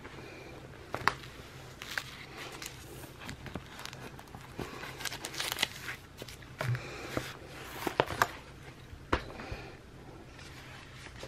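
Paper sticker sheet rustling and crinkling with scattered light taps and clicks as a planner sticker is looked for and peeled off, over a faint steady low hum.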